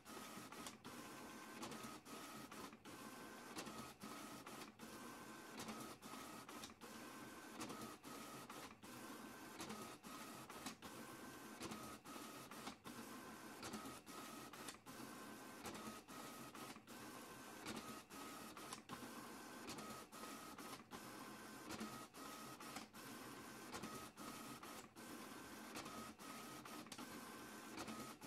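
A paper printer running steadily through a print job, feeding and ejecting sheets. A higher whir comes and goes in a cycle of about every two seconds.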